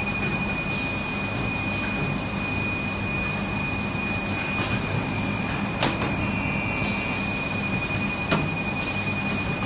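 Garment-factory machinery running: a steady mechanical din with a constant high-pitched whine, broken by a few sharp clicks and a brief extra tone a little past the middle.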